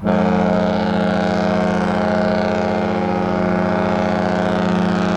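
Cruise ship Disney Treasure's horn sounding one long, steady, deep blast that starts abruptly.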